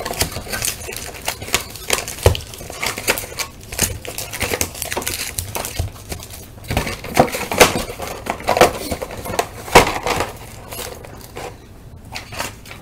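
Foil trading-card packs and their cardboard box being handled and set down on a table: scattered crinkles, taps and light knocks.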